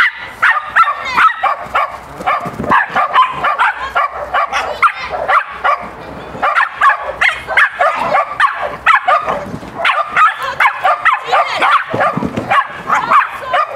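A dog barking and yipping rapidly and almost without pause, the excited barking of a dog running an agility course.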